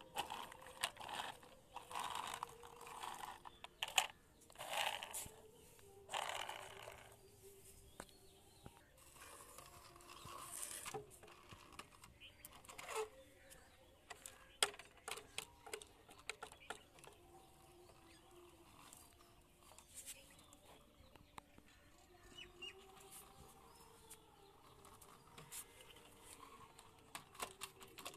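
Plastic toy vehicles being handled and set down on concrete and tile: scattered clicks and knocks with short scraping rustles, busiest in the first seven seconds.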